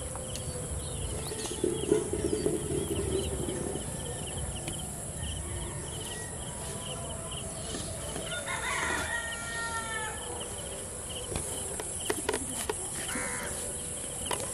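A rooster crowing once, about eight seconds in, over a steady high insect drone and rapid insect chirping. A brief knock about two seconds in.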